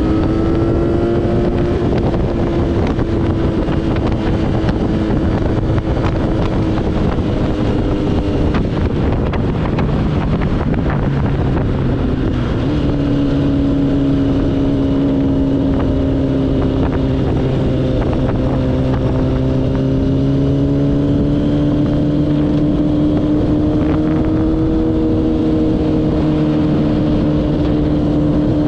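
Yamaha Raptor quad's transplanted R1 1000cc inline-four engine running steadily under way, its note dropping a little about halfway through and then slowly climbing again, with wind rushing over the microphone.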